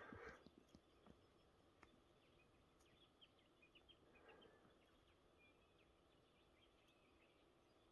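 Near silence: faint bush ambience with a few tiny, high bird chirps about three to four seconds in, and a soft, short sound at the start and again about four seconds in.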